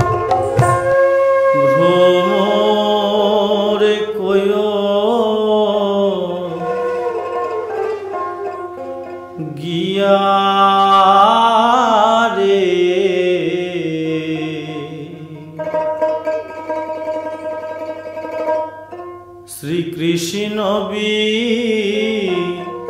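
Bengali Baul folk song: a man sings three long phrases with sliding pitch, over a steady low drone and plucked dotara, with short instrumental gaps between the phrases.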